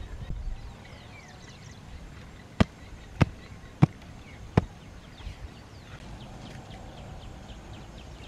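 Four sharp knocks about two-thirds of a second apart as a woven bamboo tray is tapped to shake off scraps of eggshell. Birds chirp faintly in the background.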